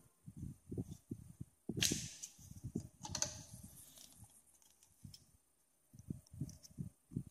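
Faint, irregular soft taps and knocks with a few sharper clicks: hands handling modelling clay and small tools on a tabletop.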